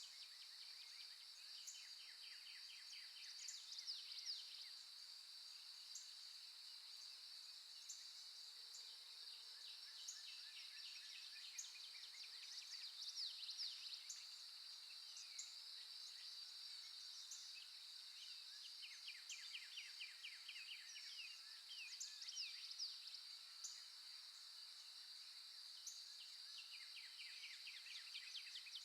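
Faint nature ambience: birds trilling and chirping in short repeated phrases over a steady, high insect drone.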